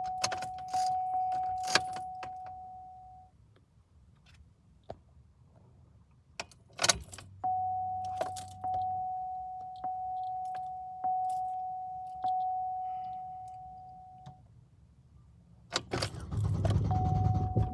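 Car warning chime dinging over and over at a steady pitch, with keys jangling and clicking in the ignition; the chime stops twice for a few seconds. Near the end the Buick LaCrosse's 3.8 V6 is cranked for about a second and a half without catching, the crank-no-start fault.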